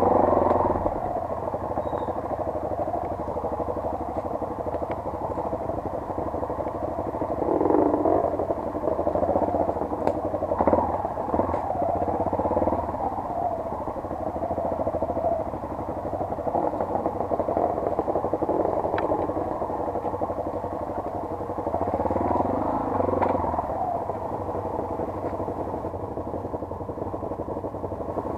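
Off-road motorcycle engine running at low speed on a dirt trail, revving up and easing off several times, with scattered clicks and clatter from the bike over the rough ground.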